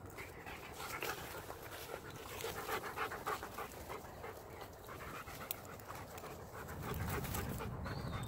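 A dog panting close by in quick, rhythmic breaths, loudest about two to three seconds in.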